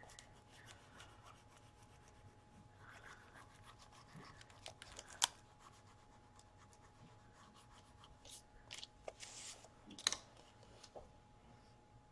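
Wooden stick burnishing a rub-on transfer letter onto a thin Bible page: faint scratching and rubbing, with a few sharp clicks along the way.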